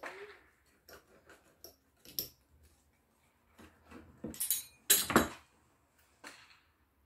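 A pizza-cutter wheel cutting through a crisp stuffed flatbread (mtabga) on a wooden cutting board: short crunches, scrapes and clicks. The loudest crackling comes about four to five seconds in.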